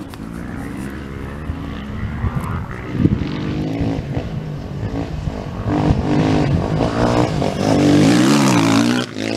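Off-road rally motorcycle engine approaching and passing close at speed, revving up and down through the gears and getting louder as it nears. The engine is loudest as the bike slides by, with quick throttle rises and falls, then its sound drops away sharply near the end.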